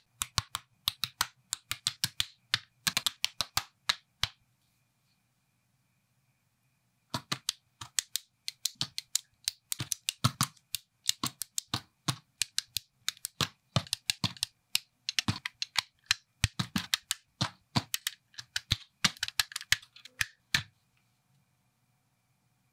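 LEGO-style plastic building bricks clicking and snapping together in quick rhythmic runs of sharp clicks, edited into a beat. The clicks stop for about three seconds after the first four seconds, then run on and stop about two seconds before the end.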